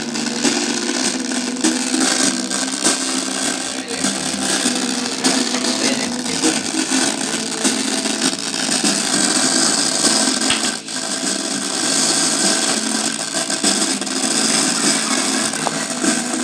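Yamaha PSR-S910 keyboard putting out a steady, harsh noisy buzz with faint pitched notes under it instead of clean sound: the symptom of a faulty sound-effects IC.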